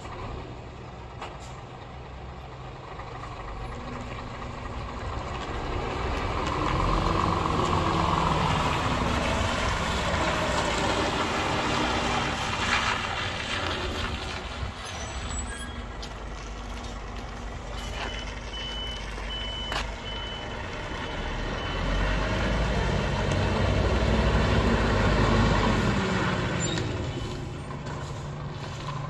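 2019 Scania S500 tractor unit's 13-litre straight-six diesel running as the truck is driven around, rising in pitch and loudness twice as it pulls away. Short air-brake hisses and a brief run of reversing beeps are heard about two-thirds of the way through.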